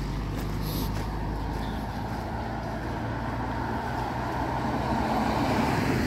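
A motor vehicle engine running, its low hum fading after about two seconds, over a steady rushing noise.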